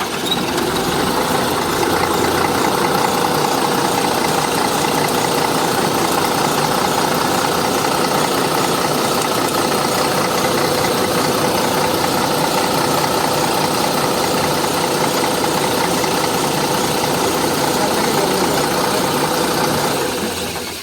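Engine idling steadily just after being started, then dying away near the end as it is shut off.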